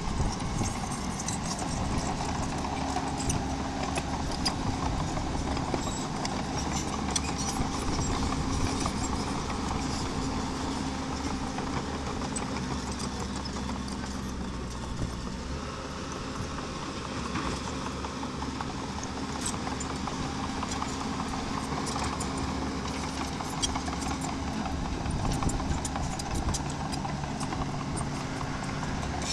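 Small bulldozer pushing stone: its engine runs steadily under a constant clatter of irregular clanks and clicks from the tracks and the rock.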